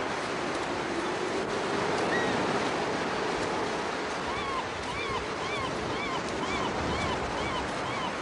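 Sea surf washing on a flat beach with wind, a steady even rush. From about halfway through, a run of short, evenly spaced chirping calls about two a second sits over it.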